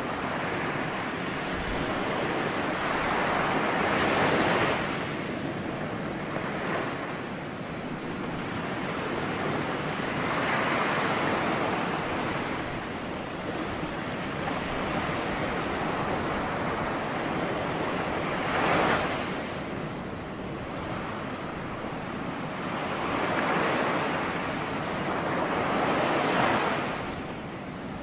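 Ocean waves breaking on a shore: a steady wash of surf that swells and falls back every few seconds, with a sharper surge about two-thirds of the way through and another near the end.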